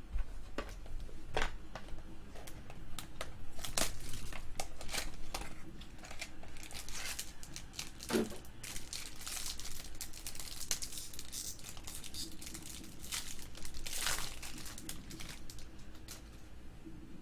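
Trading card packaging being handled and torn open: plastic or foil wrapping crinkling and tearing, with sharp clicks and rustles of cards being handled, loudest in bursts about four seconds in and near fourteen seconds.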